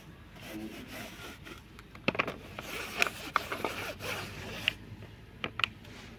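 Hand scrubbing a plastic colander during dishwashing, a scratchy rubbing with several short sharp clicks and knocks of plastic.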